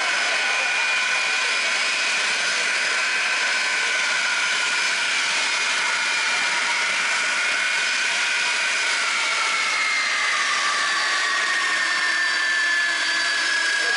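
Boeing 747-400's jet engines running at high power: a steady roar with a high whine whose pitch slowly falls over the last several seconds as the aircraft moves away.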